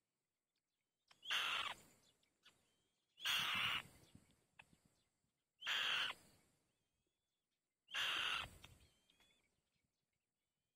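White-tailed kite giving four harsh, raspy screeches, each about half a second long and roughly two seconds apart.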